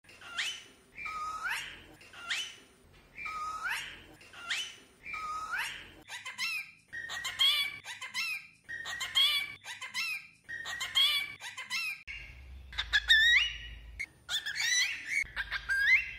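Cockatiels mimicking speech in high, whistly voices: 'oi' repeated over and over, then 'oi, bebê' several times from about six seconds in, then 'oi, mamãe' in the last few seconds.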